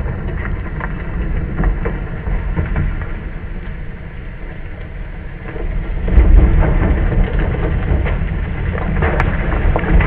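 Ford F-150 Lightning Switchgear's 37-inch off-road tyres churning through loose dirt: a heavy low rumble with a scatter of clicks from flung clods and grit, getting louder about six seconds in.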